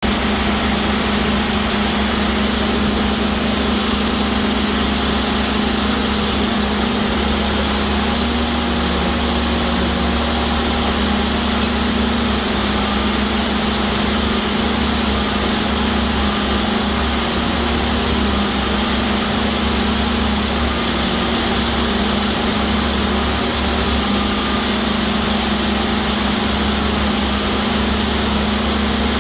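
JD1400 hydraulic drill running steadily while drilling straight, a continuous loud machine drone with a strong low hum and no break.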